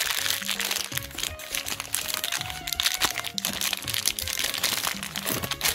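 Thin plastic blind-bag wrapper crinkling and crackling in the hands as it is opened, over light background music.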